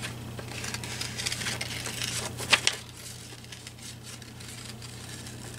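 Paper rustling and crinkling as a sheet of printed paper is handled and cut out with scissors, with small clicks throughout and a sharper click about two and a half seconds in; quieter in the second half.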